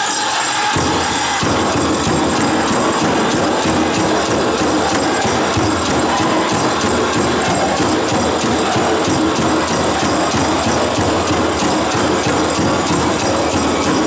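Powwow drum group drumming and singing a men's chicken dance song, with the bells on the dancers' regalia jingling along. The lower end of the drumming fills in about a second in.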